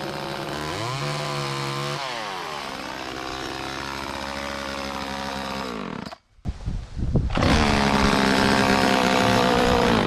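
Homelite Super 2 two-stroke chainsaw revving up and down as it cuts overhead tree branches. About six seconds in the sound breaks off for a moment, then the saw runs louder and steady at high speed.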